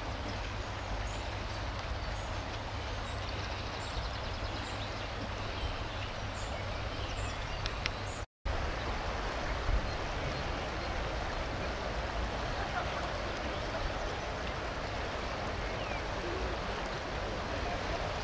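A river flowing steadily, a constant rushing of water over a low rumble, with faint bird chirps in the first half. After a brief dropout about eight seconds in, the water goes on with a faint murmur of distant voices from a crowd.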